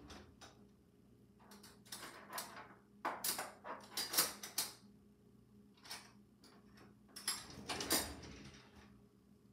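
Items clattering and clinking in an open wooden kitchen drawer as it is rummaged through by hand, in uneven bursts of sharp clicks, the busiest a few seconds in and again near the end.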